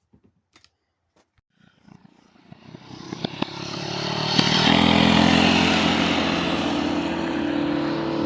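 A few faint clicks, then a motor vehicle's engine grows louder over about three seconds as it approaches, and keeps running steadily at a constant pitch.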